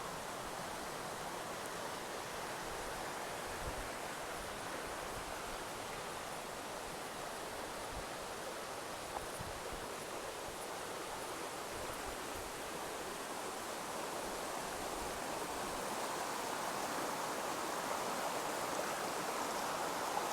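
Steady rushing of running water, a creek or waterfall, growing slightly louder toward the end.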